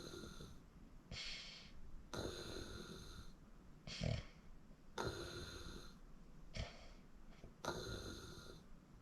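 A sleeping person snoring faintly, breathing noisily in and out. A longer breath comes about every three seconds with a shorter one between, and there is a brief louder breath about four seconds in.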